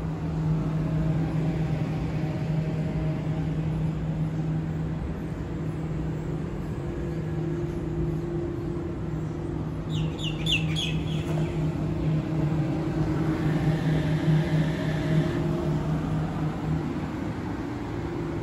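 Stationary Oscar H-set electric train giving off a steady low hum while it stands at the platform. A bird chirps briefly about ten seconds in.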